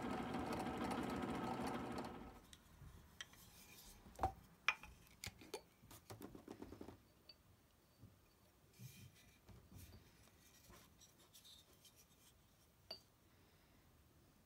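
Benchtop drill press running with a wire wheel in its chuck, a steady motor hum that stops about two seconds in. After that come faint small sounds: two sharp clinks, a brush dabbing and scraping in a small glass jar, and scattered light clicks.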